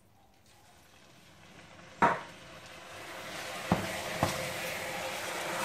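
Liquid poured into a hot stainless steel pan, sizzling and building steadily louder as it heats, while a wooden spoon stirs the mixture. One sharp knock about two seconds in and two lighter knocks near the middle.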